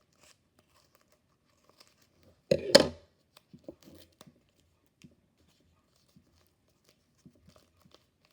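Scissors cutting excess paper, with one short, loud crunchy cut about two and a half seconds in, then small clicks and paper rustles.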